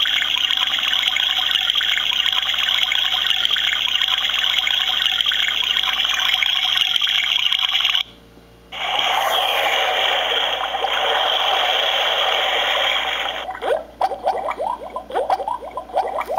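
LED alarm clock's built-in sounds playing through its small speaker: a steady rushing water sound that stops about eight seconds in, a second water sound after a short break, then quick rising chirps, several a second, near the end.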